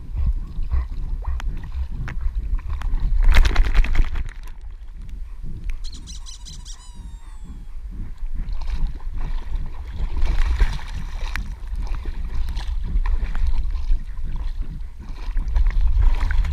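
Water sloshing and splashing around a camera on a swimming dog's back, over a constant low rumble, with regular paddling strokes about twice a second. A loud splash comes about three seconds in, and a brief high chirp about six seconds in.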